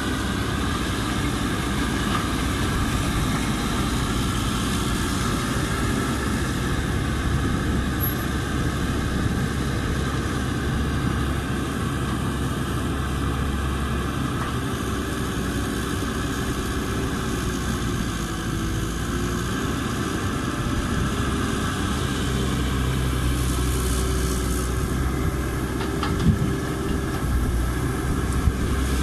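Caterpillar 312B hydraulic excavator's diesel engine running steadily while the machine digs and swings, with a faint tone that wavers in pitch and a couple of sharp knocks near the end.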